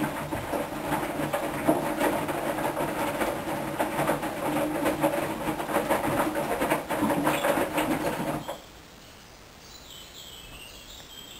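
Hoover washing machine running a rinse: the drum turns with a dense rhythmic clatter of water and laundry over a steady motor hum. It stops suddenly about eight and a half seconds in, as the drum pauses between turns.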